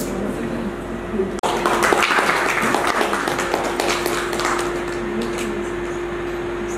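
Indistinct crowd murmur with scattered taps and claps in a hall, over a steady electrical hum. It is busiest from about one and a half seconds in to about four and a half seconds in, then settles.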